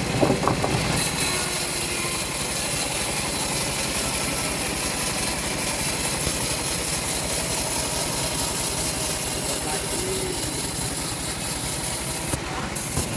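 Engine-driven homemade bandsaw mill running steadily, its engine giving an even, fast rhythm.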